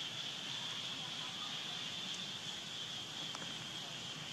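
Insects droning in one steady high note over a constant outdoor hiss.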